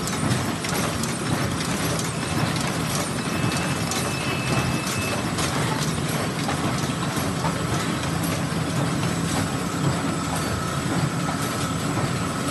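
Bobst Omega 1450 folder-gluer running, folding and gluing corrugated blanks into four-corner crashlock boxes: a steady mechanical clatter of belts, rollers and folding sections, dotted with frequent sharp clicks. A faint high whine comes in about halfway.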